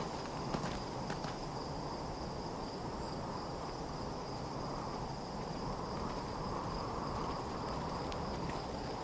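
Steady desert wind blowing through dust, with a thin high steady tone above it. A few footsteps sound in the first second or so.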